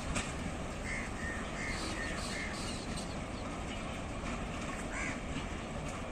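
A crow cawing, about five short caws in quick succession starting about a second in and one more near the end, over steady low background noise.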